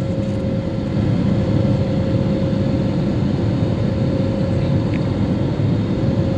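Steady rumble of a jet airliner's engines and rushing air heard inside the cabin as the plane climbs after takeoff, with a faint steady whine above it.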